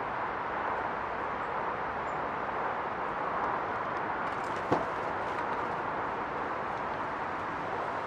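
Steady outdoor background rush at an even level, with a single sharp knock about halfway through.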